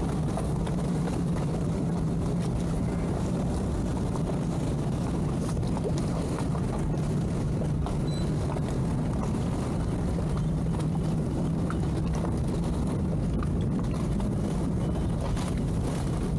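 Twin outboard motors of a towboat running steadily under way, towing a disabled yacht on a line astern, with a constant low drone and water wash.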